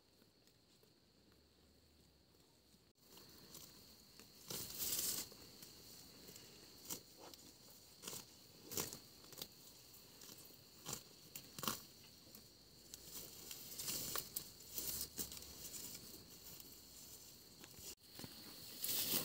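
Water buffalo grazing close up: irregular rips of grass being torn off and crunching bites, starting about three seconds in after near silence.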